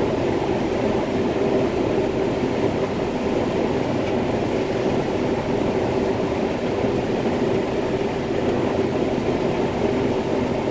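Combine harvester running steadily while harvesting corn: a constant engine and machinery drone with a steady hum, heard from inside the cab.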